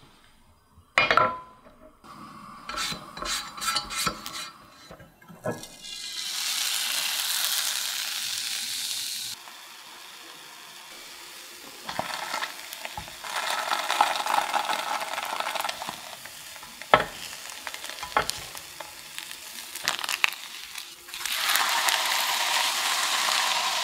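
Crepe batter sizzling in a small oiled rectangular frying pan on a gas burner. A loud clatter of the pan comes about a second in, with more clicks just after. The sizzle comes in stretches, with a few sharp taps of the silicone spatula against the pan.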